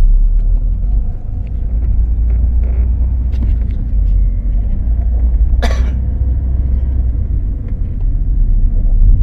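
A 2012 Ford Focus running, with a steady low rumble. A single brief, sharp sound cuts in a little past halfway.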